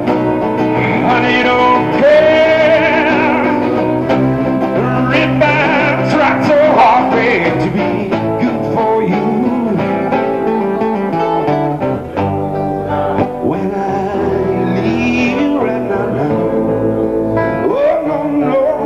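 Live acoustic band music: a man singing into a microphone over strummed acoustic guitars and an acoustic bass.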